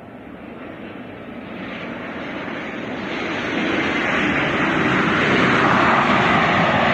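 Ryanair jet airliner on final approach to land: engine noise swelling steadily over about four seconds to a loud, even roar as it comes close.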